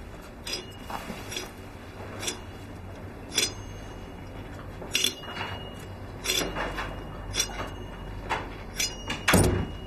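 Tableware clinking at a dinner table: a dozen or so light, irregular clicks and taps of utensils against plates and dishes, with a louder knock near the end.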